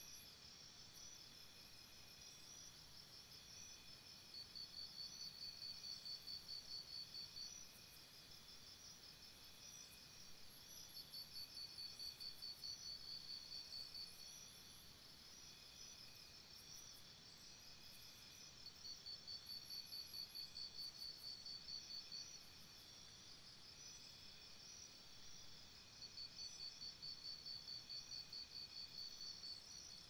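Faint insect chorus of forest crickets or cicadas: several steady high trills. A louder pulsed trill swells in four times, each lasting about three seconds.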